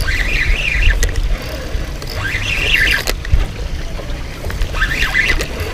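Spinning reel whirring in short, wavering bursts about every two and a half seconds, with a steady low rumble of wind and handling underneath. The reel is under heavy load from a large snook pulling against 10 lb line.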